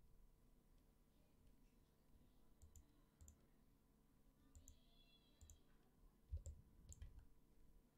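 Faint computer mouse clicks over near silence, about six scattered single clicks a second or so apart.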